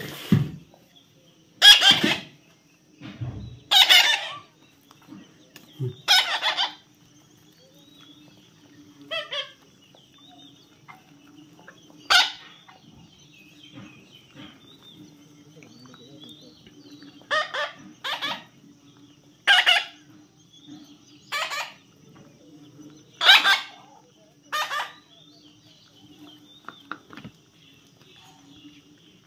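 A parrot squawking: about a dozen short, harsh, loud calls at uneven intervals, over a faint steady hum.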